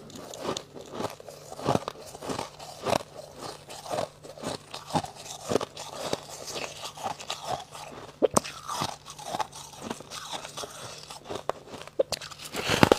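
Close-up crunching and chewing of freezer frost in the mouth, a steady run of short crunches about every half second, with a louder crunch near the end.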